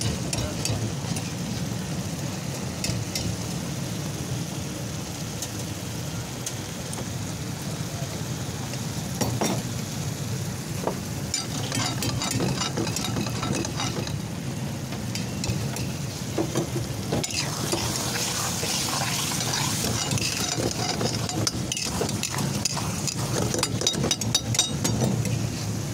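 Metal spatula stirring and scraping a thick creamy mixture in a wok over the heat, with irregular clinks against the pan and a sizzle that grows busier in the second half, over a steady low rumble.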